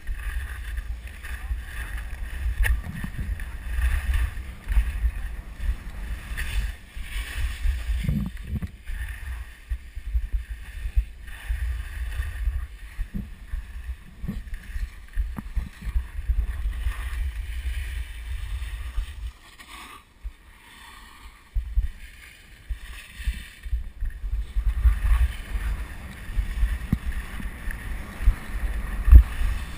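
Wind buffeting a helmet-mounted GoPro's microphone while skiing downhill: a steady low rumble, with the hiss of skis on snow above it. It drops away for a couple of seconds about two-thirds of the way through.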